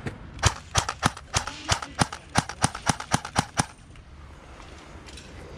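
Airsoft gun firing a quick string of about a dozen sharp shots, three or four a second, stopping about two-thirds of the way in.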